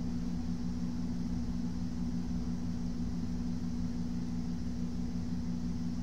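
Steady low machine hum with two close low tones over a faint even hiss, unchanging throughout.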